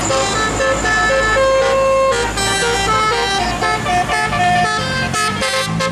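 A bus's musical 'telolet' air horn of the Basuri type playing a tune, a quick run of short notes stepping up and down with one held note. Lower notes join in near the end.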